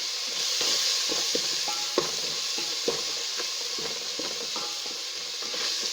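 Tomato paste and spices frying in oil in a pot, sizzling steadily while being stirred, with two sharp knocks of the stirring utensil against the pot, about two and three seconds in.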